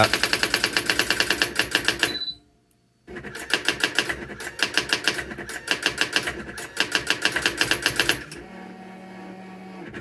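Brother AX-400 electronic daisy wheel typewriter printing its built-in self-test text: rapid, even strikes of the print wheel against the paper. They break off for a brief pause about two seconds in, run on again, and give way near the end to a steady low hum.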